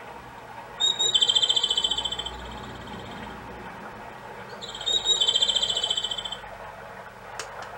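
Seiko FS510B wall clock's bird-song hourly chime playing a recorded Japanese robin (komadori) song over a soft babbling-stream background: two high phrases, each a short note followed by a fast rattling trill, about four seconds apart. A single click near the end.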